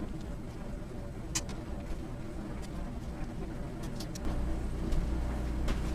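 Hands working a rubber-coupled check valve off a drain pipe: a few sharp clicks and knocks over a steady low hum, which grows louder about four seconds in.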